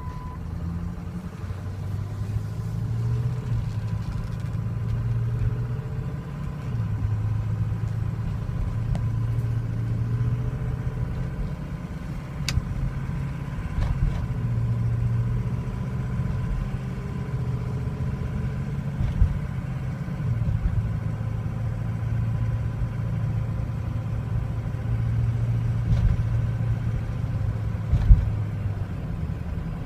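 Ford 6.0L Powerstroke V8 turbo-diesel running with an uneven note that swells and sags. This is the rough idle and stumble of an engine that runs poorly once hot. A brief thump comes near the end.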